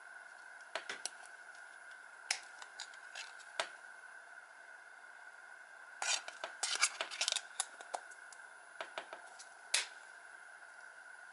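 Plastic phone keypad buttons clicking: scattered single presses, then a quick run of clicks about six seconds in. A faint steady high hum runs underneath.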